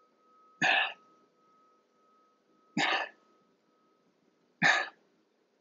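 A person's sharp, forceful exhalations under exertion, four short puffs about two seconds apart.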